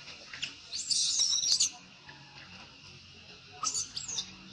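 Baby macaque crying in distress: one shrill, wavering scream about a second in, then two shorter squeals that fall in pitch near the end.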